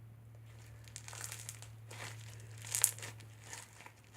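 Foam slime, full of small foam beads, being squished and stretched by hand: a run of crackling, crinkling bursts, loudest about three quarters of the way through. A low steady hum runs underneath.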